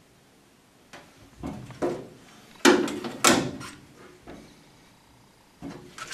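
Metal mounting bracket being handled and slid on a pickup truck bed: a string of short scrapes and knocks, with two louder clatters close together about three seconds in.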